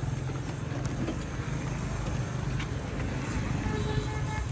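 Small single-cylinder petrol engine idling steadily with an even, fast pulse.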